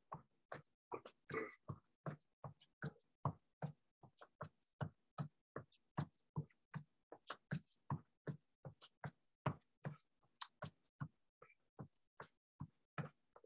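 Faint, rhythmic footfalls of a person stepping through an aerobics move, about three soft thuds a second.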